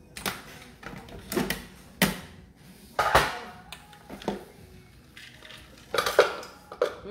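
Plastic food processor bowl and lid knocking and clattering as they are handled, about six separate knocks. Near the end, chopped nuts are tipped from the processor bowl into a glass mixing bowl.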